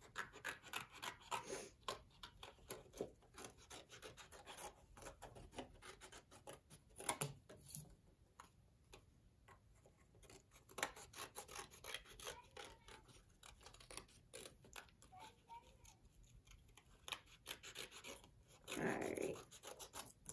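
Scissors snipping through thin cardboard in a long run of short, irregular cuts, with a longer rustle near the end.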